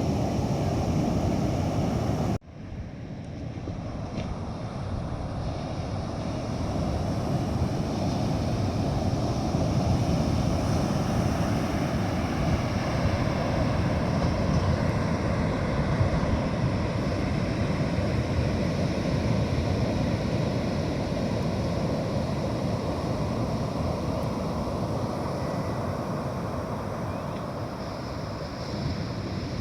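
Rush of surf breaking on the beach, mixed with wind buffeting the microphone. The sound drops out abruptly about two seconds in and then swells back up over the next few seconds.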